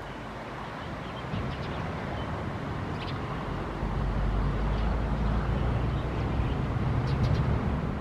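Outdoor field ambience: a steady low rumble, from wind or distant traffic, that grows louder about four seconds in, with a few faint short high chirps.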